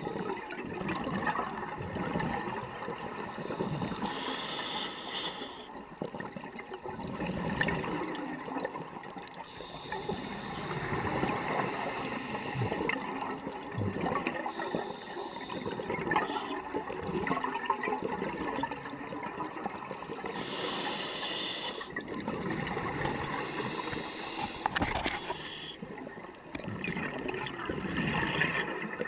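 Scuba diver's regulator breathing underwater: a hiss with each breath drawn through the demand valve, then gurgling exhaled bubbles, repeating every few seconds.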